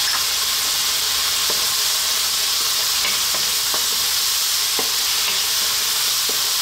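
Chopped onion, garlic, ginger, tomato and green chillies sizzling steadily in hot olive oil in a wok. From about a second and a half in, a wooden spatula stirs them, with occasional light scrapes and knocks against the pan.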